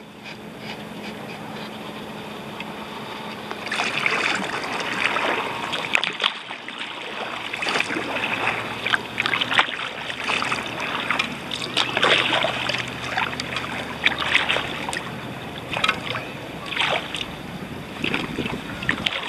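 Kayak paddle strokes in calm water: repeated splashes of the blades entering the water, with water dripping off them, starting about four seconds in and coming at irregular intervals.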